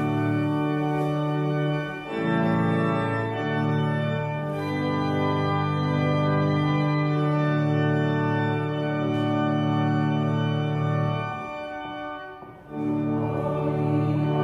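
Church pipe organ playing a hymn in sustained chords, pausing briefly about twelve seconds in before it starts again.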